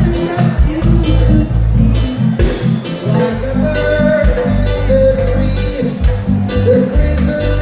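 A live band playing a Latin-style groove, with a heavy bass line, guitar and a steady beat.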